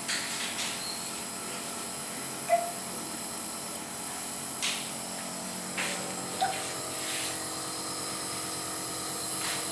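Nebuliser compressor running with a steady hum and the hiss of the spray, with a few brief clicks and a short squeak about two and a half seconds in.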